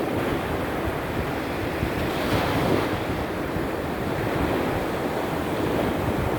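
Sea surf during a small storm: waves breaking on the shore in a continuous wash, with one wave swelling louder about two and a half seconds in. Wind buffets the microphone with a low rumble.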